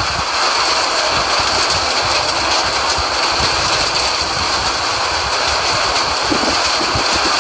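Strong wind from a whirlwind blowing steadily, with irregular gusts buffeting the microphone.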